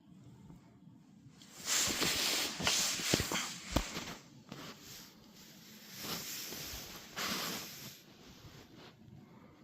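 Rubbing and scrubbing noise of a dog's paw being cleaned, in two stretches with a couple of small knocks in the first.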